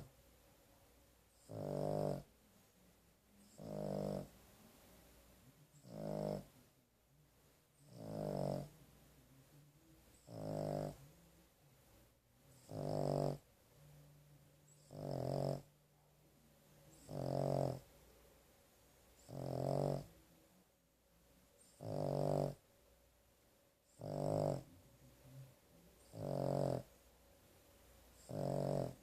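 Boston terrier snoring in deep sleep: a loud, even snore about every two seconds, each lasting under a second, with quiet breathing between.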